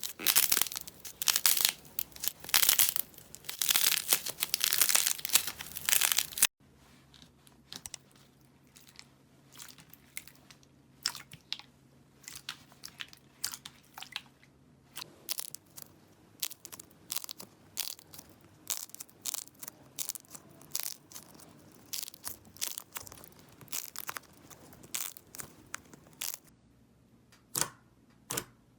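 Slime being squeezed and poked by hand: dense, loud crackling for the first six seconds, then after a sudden cut, quieter scattered sharp clicks and pops.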